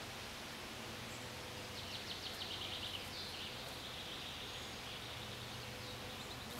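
Steady outdoor hiss of wind and rustling foliage. A small songbird gives a rapid high trill about two seconds in and a shorter one near the end. Under it is a faint steady low hum, the distant 2TE116UD diesel locomotive approaching.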